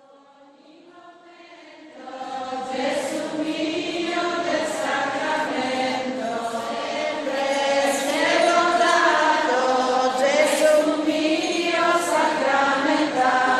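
Congregation singing a hymn together in many voices, fading in at first and full from about two seconds in.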